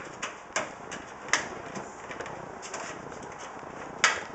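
Stamped sheet-metal motherboard I/O shield being pressed into the rear opening of a PC case: a few sharp metallic clicks and taps with lighter ticks between, the loudest click near the end as it is pushed to snap into place.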